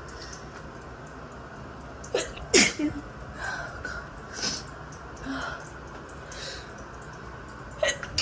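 A woman sneezing from an allergy: one loud sneeze about two seconds in, a few fainter sounds after it, and a second sneeze starting at the very end. It runs over the steady hiss of the running shower. The fit was set off by the strong scent of a body wash.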